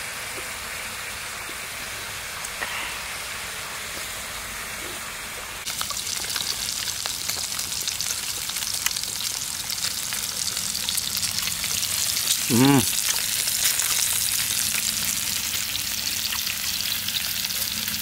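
Fresh pork belly sizzling and crackling in a pan on a portable gas stove. It starts as a quieter steady hiss and turns suddenly louder about six seconds in, with a brief voice exclaiming about two-thirds of the way through.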